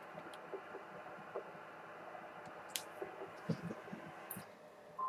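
Faint hiss from a 2-metre FM transceiver's speaker on an open repeater channel between transmissions, with a few light clicks and knocks. The hiss drops away about four and a half seconds in, followed by a short high beep.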